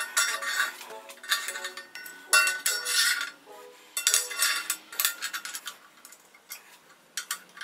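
Metal clamp blocks being set down and slid across a steel table top: several short bursts of clinking and scraping metal through the first five seconds or so, then a few lighter clicks near the end. Soft background music runs underneath.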